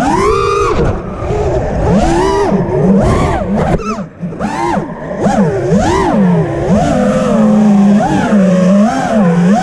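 FPV freestyle quadcopter's brushless motors whining, the pitch swooping sharply up and down again and again as the throttle is punched and eased. The sound drops away briefly about four seconds in, where the throttle is cut.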